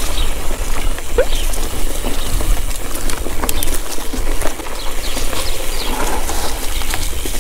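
Mountain bike rolling along a dirt forest singletrack: tyres on the trail and the bike rattling with scattered clicks and knocks over bumps, under a steady low rumble.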